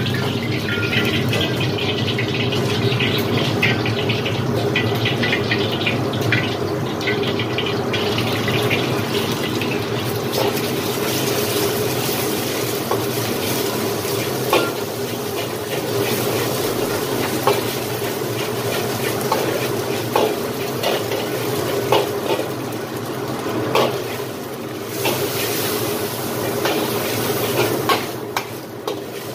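Eggs and then meat and rice sizzling in a hot seasoned wok while a metal ladle scrapes and clinks against the pan in stir-frying, over a steady hum. The sizzle grows louder about a third of the way in, and the ladle strikes come more often in the second half.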